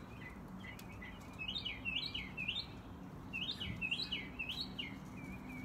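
A songbird singing two short runs of quick, repeated slurred whistled notes, one run about a second and a half in and another past the middle.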